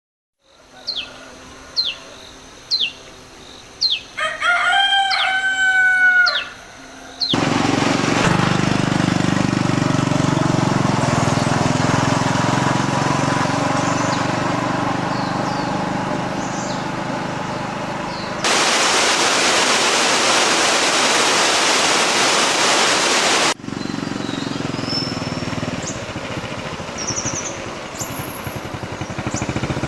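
A rooster crows once, about four seconds in, after a few short sharp chirps. Then a loud, even rushing noise fills the rest, switching abruptly in and out as if spliced.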